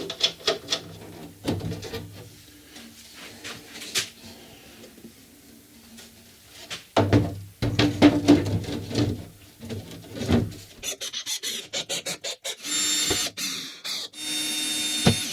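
Knocks and scraping as a wooden window frame is handled and fitted against a door. Near the end a cordless screwdriver runs in two short spells, driving the frame's screws back in.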